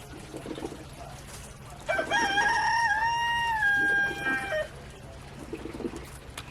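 A rooster crowing once: one long crow of about two and a half seconds, starting about two seconds in.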